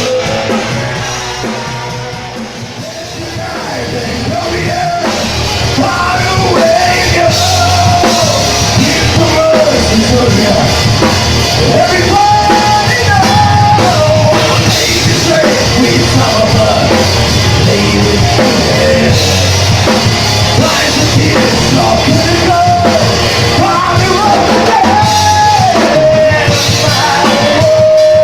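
Rock band playing a cover song, with sung vocals over guitar and drum kit. The music drops in level about three seconds in, then builds back up.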